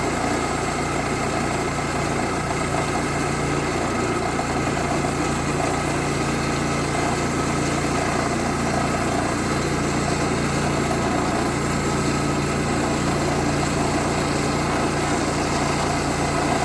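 Woodland Mills portable bandsaw sawmill's engine running steadily at an even pitch.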